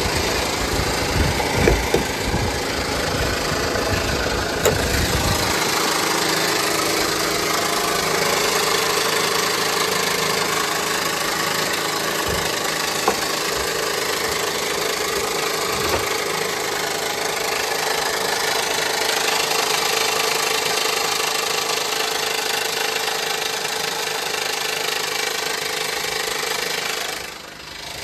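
2015 Honda Pilot's 3.5-litre V6 running at idle with a steady mechanical noise, which the mechanic puts down to a noisy timing belt. The deeper rumble falls away about five seconds in.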